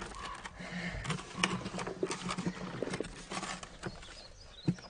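Dirt and small stones scraped up and dropped by hand into a plastic bucket in a pit, making irregular scrapes, clicks and rattles. A faint steady low hum runs underneath.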